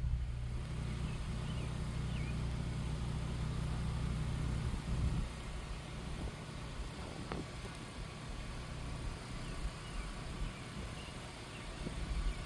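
Wind buffeting the microphone as a low rumble, strong for about the first five seconds and then easing, with a single click about seven seconds in.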